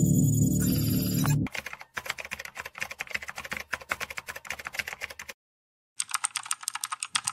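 Keyboard typing sound effect: rapid runs of key clicks. The clicks follow a loud low sound that ends about a second and a half in, stop for a moment about five seconds in, then come back in two short runs near the end.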